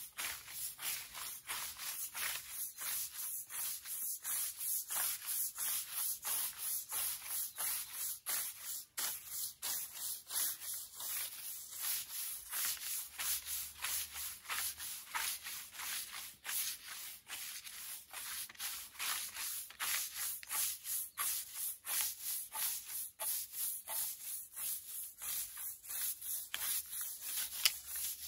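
Stiff push-broom bristles scrubbing roller-shutter slats wet with degreaser, in steady back-and-forth strokes of about two a second.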